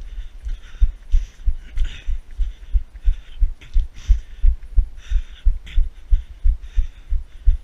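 Steady rhythm of low thumps, about three a second, each with a short scuffing hiss: footfalls and the jolting of a camera carried by someone moving on foot.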